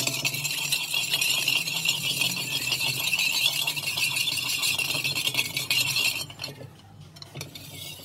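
Small wire whisk beating warm milk and sugar in an aluminium bowl, a fast, steady scraping rattle of wire against metal as the sugar is stirred in to dissolve. It falls away about six seconds in.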